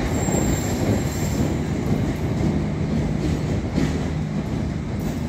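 Materfer diesel-electric railcar running past on the rails. Its diesel engine gives a steady low drone over the rumble of the wheels, fading slightly near the end as it moves away.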